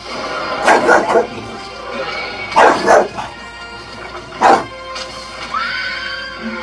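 Bulldog barking: five loud barks, two quick pairs and then a single, over background music.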